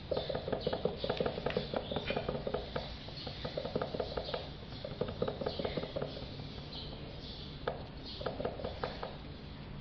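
Paintbrush dabbing and scrubbing resin into fibreglass chopped-strand mat to wet it out: quick wet taps in rapid runs, with a lull around six to seven seconds in and another run near the end.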